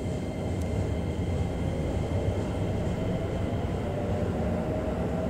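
Cabin noise of a JR E233-5000 series electric commuter train running: a steady low rumble of wheels and running gear, with a faint steady whine.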